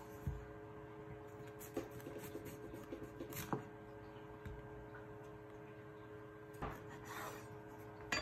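Chef's knife cutting through a white bitter gourd on a wooden cutting board: faint crunching, scraping cuts and small knocks of the blade on the board, with a sharper knock at the very end.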